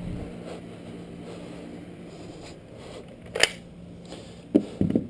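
A sharp click about three and a half seconds in, then two or three dull knocks near the end, over a steady low hum.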